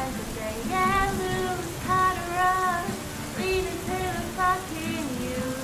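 A woman singing a slow, gliding melody in an acoustic song, with a steady patter of rain mixed underneath.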